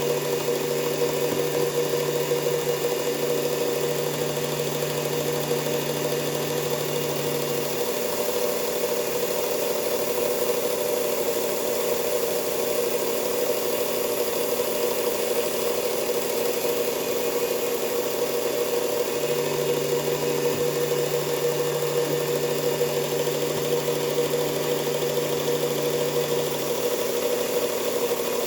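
Belt grinder motor running steadily with the belt spinning, during knife sharpening passes. A lower hum comes in twice, each time for several seconds.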